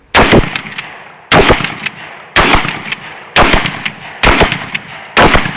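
Shotgun fired six times in quick succession, about one shot a second, each loud report trailing off in echo.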